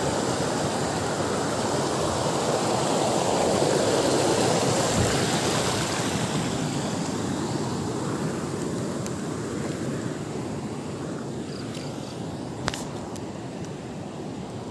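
Steady rush of river water running over rocks, swelling a few seconds in and then slowly fading. A single sharp click near the end.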